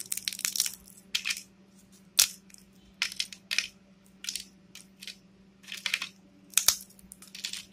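Crisp fried potato chips being snapped and crumbled between the fingers on a plate: a run of sharp, dry cracks coming in irregular clusters.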